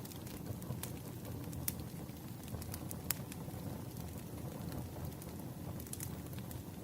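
Wood fire crackling: a steady low rumble with sharp, irregular pops and snaps every second or so.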